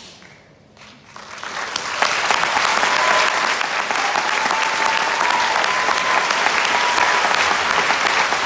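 Audience applause that swells about a second in and then holds steady. A thin, whistle-like tone sounds over it through the middle.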